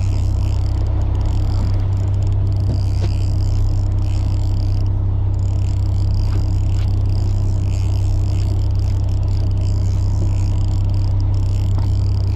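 Fishing boat's engine running with a steady low drone, with a faint high whirr that comes and goes over it.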